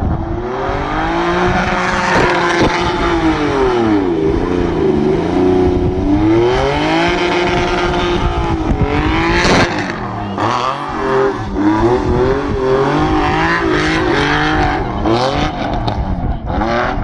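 Stunt car spinning donuts. Its engine revs up and down over and over, over the screech and hiss of spinning tyres.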